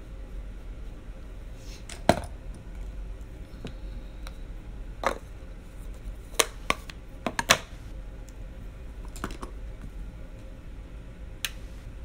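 Makeup cases and brushes being handled, giving about ten sharp clicks and taps at irregular intervals, over a low steady hum.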